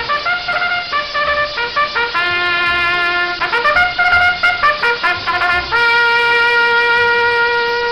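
Trumpet sound effect: a short brass melody of quick changing notes that ends on one long held note.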